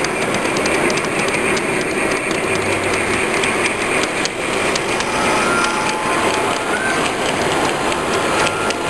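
G-scale model train rolling along its track, heard from a car of the train itself: a steady rolling noise with rapid clicking of the wheels over the rail joints.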